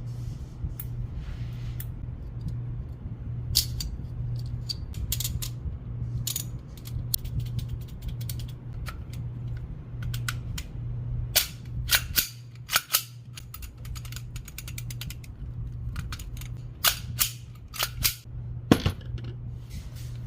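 Sharp metallic clicks and clacks of a pistol slide being handled, some in quick runs, over a steady low hum.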